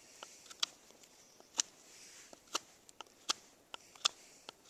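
CRKT Crawford Kasper folding knife whittling a stick of cold, hard pine: a run of short, sharp cutting strokes as the blade bites in and slices off chips, unevenly spaced at about one or two a second.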